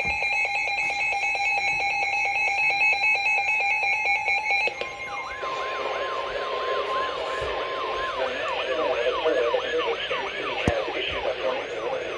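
Electronic emergency alert tones: a buzzy, rapidly pulsing multi-tone signal for about five seconds. It then switches to a steady tone lasting about three seconds, under a siren-like falling sweep that repeats about twice a second.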